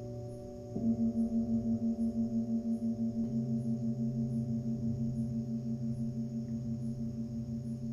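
Tibetan singing bowls struck with a mallet, with earlier bowls still ringing. A large bowl struck about a second in gives a loud low tone that wobbles quickly in loudness as it rings on. A second strike about three seconds in adds a deeper tone beneath it.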